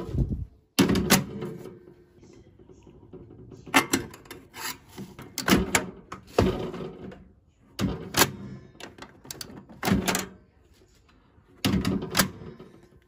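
Microwave oven door latch being worked over and over: the repaired plastic door-release lever snaps up and down with sharp clacks and clunks, about eight to ten in all. The repeated opening and closing tests the freshly mended lever, its broken plastic pinned with small nails.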